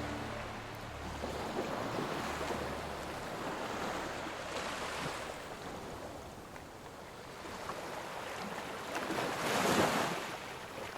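Ocean surf: waves washing in and drawing back in slow swells, with the biggest wave breaking near the end.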